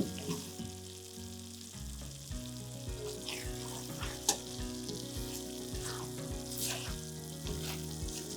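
Chili-and-coconut-milk balado sauce sizzling and bubbling in a wok, with crackles and a couple of sharp clicks, one right at the start and one about four seconds in. Soft background music plays underneath.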